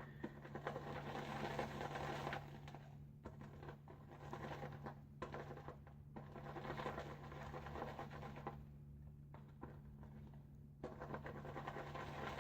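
Badger shaving brush whipping soft shaving soap into lather in a bowl: a faint, wet, rhythmic swishing and scratching with a few brief pauses, as freshly added water is worked in and the lather builds. A steady low hum runs underneath.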